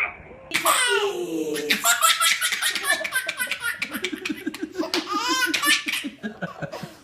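A small child laughing hard, in a long run of quick, repeated bursts of laughter.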